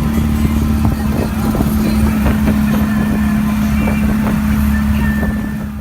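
Off-road sand rail buggy running at a steady speed, its engine holding one even drone, with irregular rattles and knocks over rough ground.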